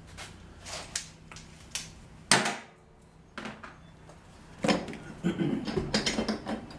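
Hand tools and metal parts clinking and knocking, with one sharp knock about two seconds in and a run of clattering near the end: tool work on the tractor's air filter bracket bolts.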